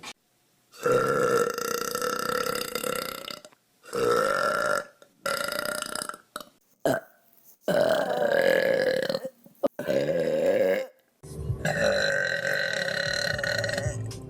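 A string of long human burps, one after another, several held on a steady pitch for one to three seconds, with abrupt breaks between them.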